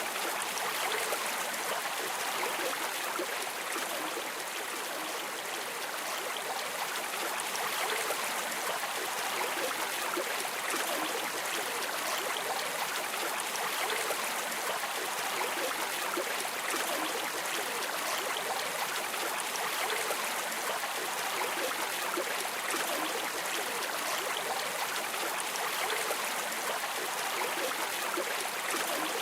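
A stream of water running and gurgling steadily, an even rushing hiss with no breaks.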